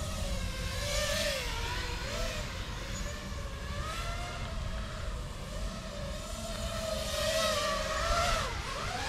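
FPV quadcopter's motors and propellers whining, the pitch wavering and gliding up and down with throttle changes, over a steady hiss.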